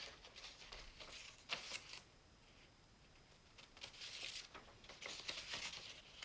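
Faint scratchy rustling in short bursts, in two stretches with a quiet gap of about a second and a half between them.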